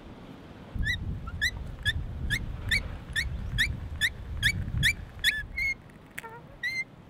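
Hand brace turning an auger bit into wood: a short rising squeak on each turn of the crank, a little over two a second, over the low rumble of the bit cutting. The boring stops after about five seconds, followed by a few looser squeaks.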